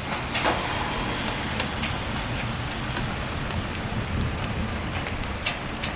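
Rain and hail falling: a steady hiss of rain with scattered sharp ticks of impacts.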